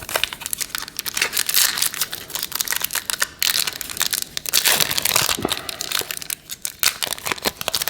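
Crinkly plastic wrapper of a trading-card pack being torn open and crumpled, with dense crackling and rustling as it is handled.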